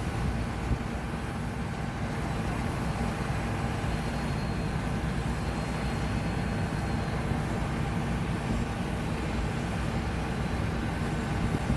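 John Deere S780 combine harvester running steadily under load, a constant mechanical drone with a faint steady whine over it.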